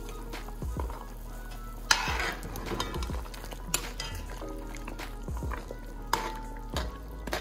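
Metal ladle stirring chunks of oxtail in an aluminium stew pot, scraping and knocking against the pot with a few sharp clinks.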